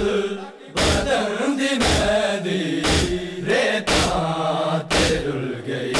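Men's voices chanting a Punjabi noha in unison, with a crowd's hands striking bare chests together about once a second in matam.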